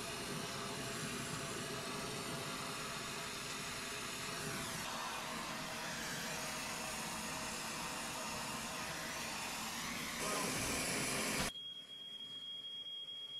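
Oxyacetylene brazing torch hissing steadily as it heats copper refrigerant line joints. About eleven seconds in the hiss cuts off abruptly, leaving a quieter background with a steady high-pitched tone.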